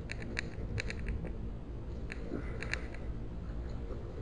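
A baitcasting reel clicking in short quick runs while a hooked bass is fought on the rod, over a steady low rumble of wind and water on the microphone.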